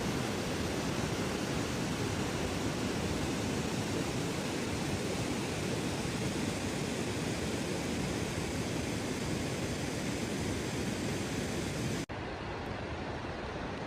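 Steady rain falling, an even hiss. About twelve seconds in it cuts off for an instant and comes back a little quieter and duller.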